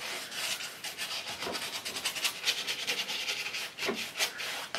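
Paintbrush scrubbing oil paint onto a stretched canvas in quick, repeated short strokes, each a dry scratchy brush-on-canvas sound.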